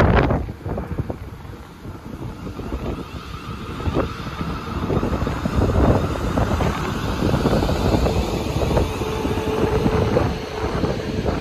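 Train running into the station, its rumble and rail hiss building after the first few seconds, with a steady hum near the end. Wind gusts buffet the microphone at the start.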